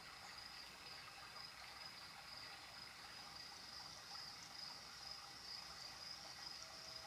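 Faint night-time nature ambience: crickets chirring steadily at a high pitch over softly trickling water.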